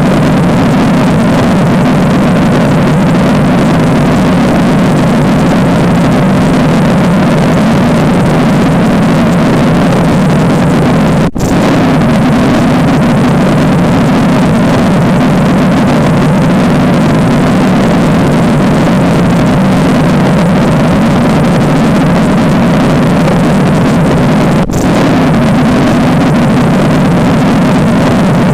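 Loud, steady droning noise, engine-like and heaviest in the low register, broken by two brief gaps about 13 seconds apart.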